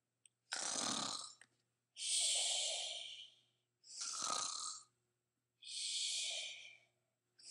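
A person snoring: four slow breaths, alternating a rough snore with a hissing breath out, about one every second and a half to two seconds.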